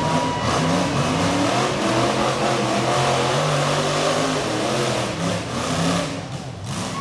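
Rock crawler buggy's engine revving up and down as it works its way over rocks, easing off briefly near the end.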